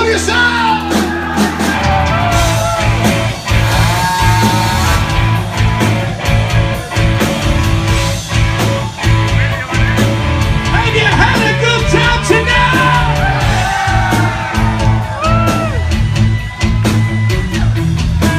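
Loud live hard rock band playing, with drums, bass and guitar and a singer's voice sliding and yelling over the top.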